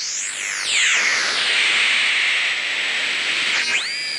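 Twinplex regenerative shortwave receiver with a type 19 tube being tuned across the band: high whistles glide up and down in pitch as the oscillating detector passes over station carriers, with hiss between them. One whistle sweeps up and back down right at the start, and another falls in pitch near the end.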